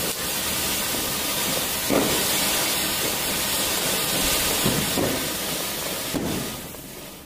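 Ground fountain firework hissing steadily as it sprays sparks, with a couple of sharper pops. It dies down near the end.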